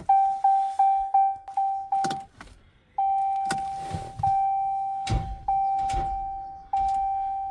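2016 Ram 1500's dashboard warning chime sounding over and over as the key is turned: quick short chimes for about two seconds, then longer chimes repeating about once a second, with a few sharp clicks. The truck won't crank on a weak battery at about 11 volts.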